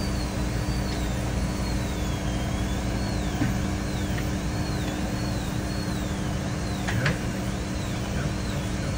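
Dental lab dust-extraction suction running with a steady rushing hum, with a thin high whine over it that wavers up and down about once a second. Two light clicks, about three and a half and seven seconds in, as the articulator and model teeth are closed together to check the bite.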